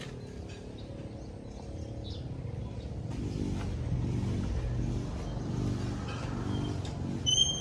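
An engine running steadily, its hum swelling and fading in the middle, with a short high chirp near the end.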